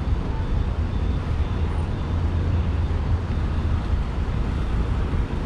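Steady road traffic noise from cars on a multi-lane city street, heavy in low rumble.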